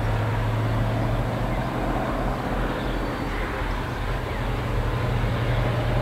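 Pair of EMD G26C diesel locomotives (HŽ series 2062) running with a steady deep engine drone as the freight train moves slowly away. The engines are two-stroke, Roots-blown EMD 645 diesels. The drone grows a little louder near the end.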